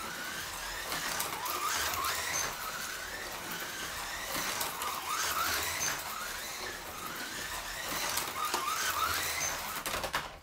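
Scalextric Ford Focus WRC slot car's small electric motor whining as it laps the track, the pitch rising on each straight and falling away for each corner, over and over, with frequent clicks. It cuts off at the very end.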